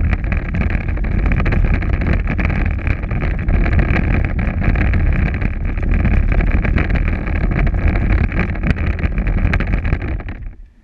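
Power Wheels ride-on toy car driving over rough, cracked asphalt: its electric motors whine steadily over a rumble and rattle from the wheels, with wind on the microphone. The noise dies away just before the end as the car comes to a stop.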